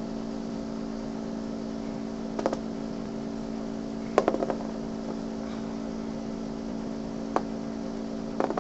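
Small plastic Gogo's Crazy Bones figures being flicked onto a cardboard board: a few sharp clicks, the loudest about four seconds in followed by a short run of smaller clattering bounces. A steady low hum runs underneath.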